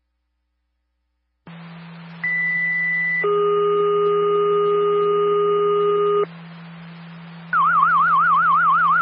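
Radio dispatch tone-out heard over a scanner, with a steady low hum under it. A high tone holds for about a second, then a lower tone for about three seconds: a two-tone sequential page alerting fire and EMS. After a short pause comes a fast warbling alert tone, about five swings a second, for about two seconds.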